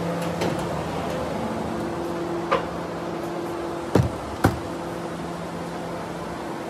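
Steady hum of a running plastic injection moulding machine, with a short knock about two and a half seconds in and two sharper, louder knocks half a second apart around four seconds in.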